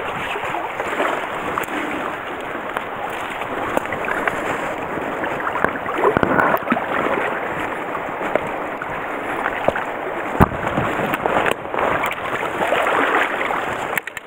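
Stream water rushing steadily, with splashing and rustling as a dip net is pushed and worked through the water and dead reeds of the bank. A short sharp knock comes about ten seconds in.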